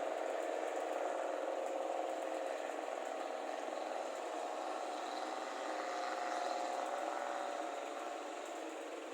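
Rice combine harvester's engine running steadily with a loud exhaust.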